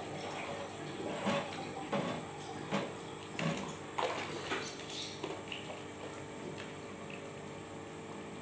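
Chili syrup being stirred in a stainless steel cooking pot with a long-handled spoon: liquid sloshing, with a few uneven knocks of the spoon against the pot over the first five seconds or so, then quieter stirring over a steady faint hum.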